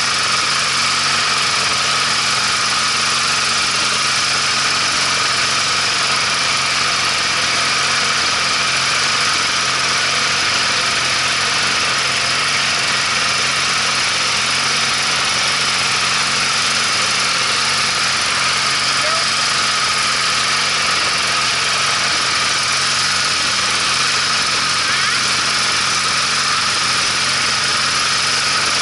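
Riding lawn mower's engine running at a steady speed as the mower drives along, an even drone that does not change.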